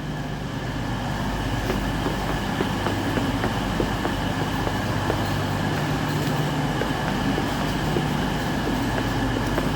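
GB Railfreight Class 66 diesel locomotive running as it approaches with a loaded coal train: a steady engine drone with a few faint clicks, building slightly over the first couple of seconds.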